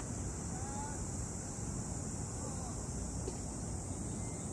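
Cicadas singing in a steady, high-pitched chorus, with a low rumble underneath and a few faint short whistles.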